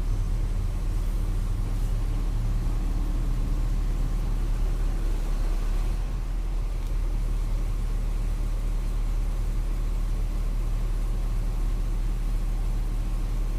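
Volksbus 17.230 EOD city bus engine running steadily with a low, even drone and no change in speed.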